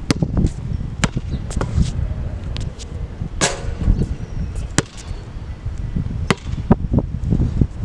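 Basketball dribbled and shot on a hard outdoor court: a run of sharp, uneven bounces and knocks. Wind rumbles on the microphone underneath.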